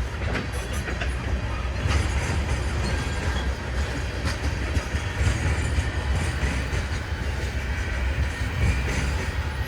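Freight cars rolling past with a steady low rumble, their wheels clicking over the rail joints a few times.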